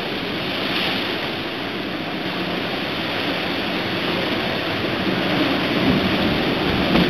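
Rough sea with wind: a steady rush of breaking waves and whitewater.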